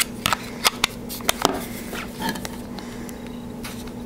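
Several sharp plastic clicks in the first second and a half as the battery is pressed into a Motorola Triumph smartphone and its back is pressed shut, then a few faint handling taps.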